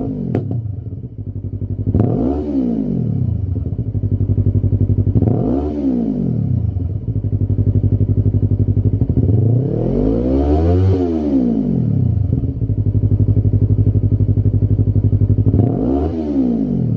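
Yamaha YZF-R3's 321 cc parallel-twin engine breathing through a Lextek RP1 full exhaust system, idling steadily and blipped four times. Three of the revs are short, and the third, about eleven seconds in, is longer and goes higher before dropping back to idle.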